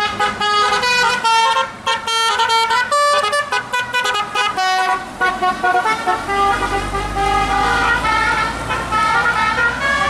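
Tour bus's multi-tone "telolet" musical air horn playing a tune: a quick run of short notes, then longer held notes. The bus engine's low rumble comes up about six seconds in as it passes.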